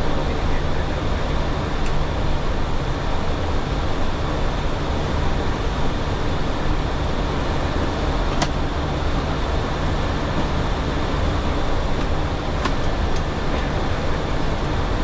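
Steady flight-deck noise of a Boeing 737 in flight: a constant rush of airflow over the nose with the engines' low drone beneath it. A couple of faint clicks come through it about halfway.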